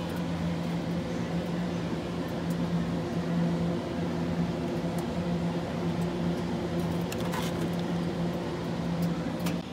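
Steady hum of a supermarket freezer case running with its glass door open, a low droning tone from its fans and compressor, with a few light clicks as ice cream boxes are handled near the end.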